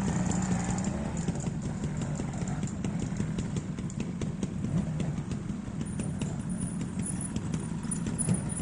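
Trials motorcycle engine running at low revs as the bike picks its way through an observed section, a steady low note with a run of sharp ticks over it.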